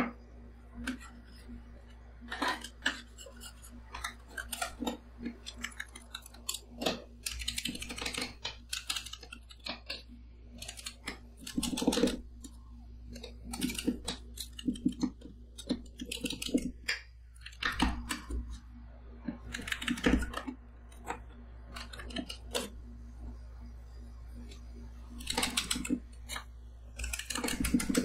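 Two metal spatulas chopping and scraping a freezing blueberry whipped-cream mixture on the stainless steel cold plate of a rolled-ice-cream machine: quick, irregular clicks and taps of the blades on the plate, with a few longer scrapes, over a steady low hum.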